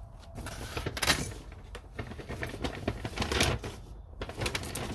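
Handling noise: a run of clicks, knocks and rustles as tools and their packaging are picked up and set down.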